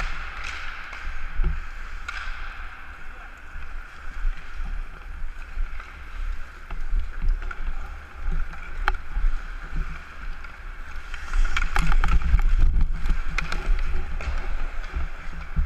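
Ice hockey skate blades scraping and carving the ice, with wind rumble on a helmet-mounted camera's microphone. Sharp clacks of sticks and puck come throughout, thickest in the last third.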